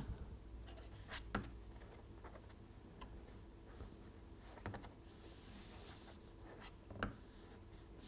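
Faint handling sounds of thin plasticard strips being set down and pressed together on a cutting mat: light rubbing, with a few soft taps and clicks about a second in, near the middle and near the end.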